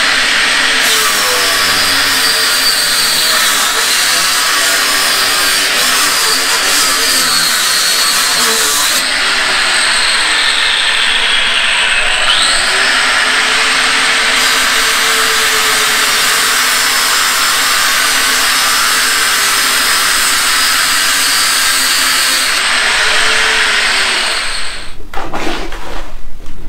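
A power cutter with a spinning disc cutting clay bricks to size. It runs as a steady, loud grinding noise with a high whine that sags as the disc bites into the brick and recovers. It stops about two seconds before the end.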